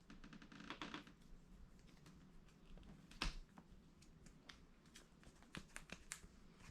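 Faint, scattered clicks and rustles of a cat batting and grabbing a toy bird, with one sharper knock about three seconds in.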